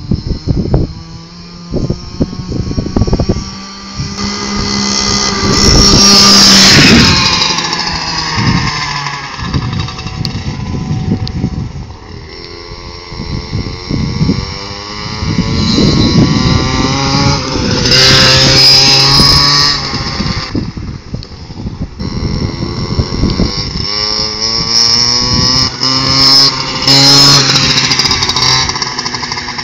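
Small engine of a Go-Ped Go Quad mini kart revving up and down as it drives past, its pitch rising and falling, loudest on three passes.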